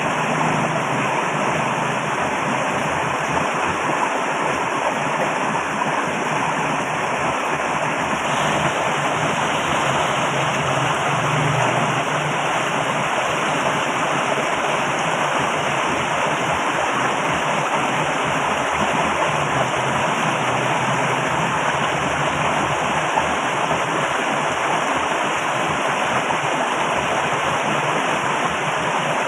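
Flowing water rushing steadily, very loud, without a break.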